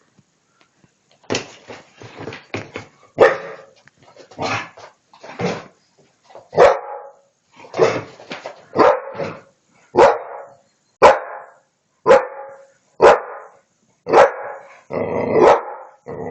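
Pit bull barking repeatedly, about one sharp bark a second, in an attack on a vacuum cleaner that she hates.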